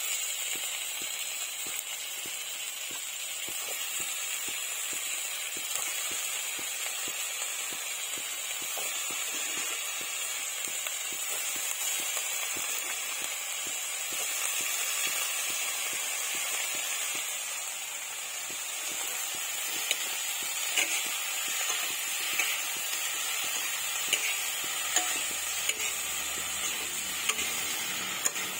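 Eggplant pieces frying in fish oil with onion and green chili in a metal wok: a steady sizzle. From about twenty seconds in, a spatula stirring through the pan adds sharp clicks and scrapes against the metal.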